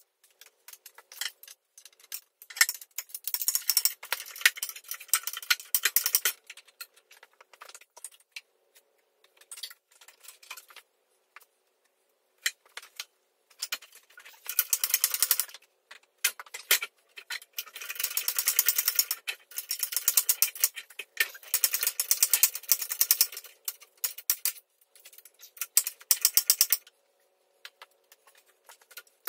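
A hand-lever farm jack being pumped under load, lifting a heavy hydraulic box on a dozer: bursts of rapid metallic clicking and rattling, with quiet pauses between them.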